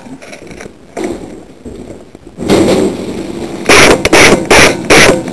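Airsoft gun firing close to the microphone: loud, sharp single shots about two a second, beginning about three and a half seconds in after a stretch of lower, rough noise.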